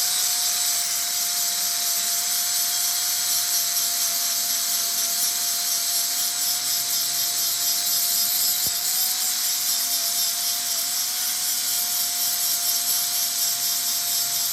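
Power tool running steadily on metal, a constant hiss with a single steady whine that holds the whole time.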